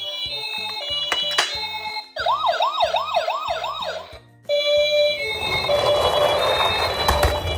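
Background music with a steady stepping melody. About two seconds in, a toy ambulance's electronic siren yelps in about five fast up-and-down sweeps for two seconds, then cuts off. Later a noisy rush with a low rumble swells and fades under the music.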